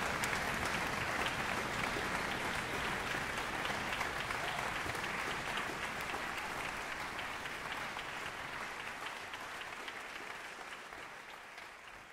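Concert audience applauding, a dense steady patter of many hands that fades away over the last few seconds.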